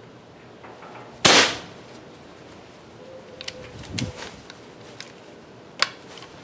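Evanix Rainstorm II PCP air rifle with an Air-Superiority Huma regulator firing a single .25 caliber pellet: one sharp report about a second in, with a short ringing tail. A few light clicks follow, and a sharper click comes near the end.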